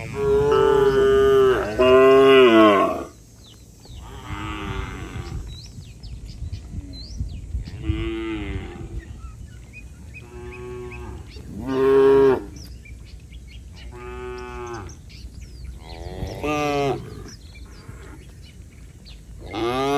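A herd of cattle mooing, one after another: about nine moos, each a second or so long, the two loudest back to back at the start and the rest spread out with quieter gaps between.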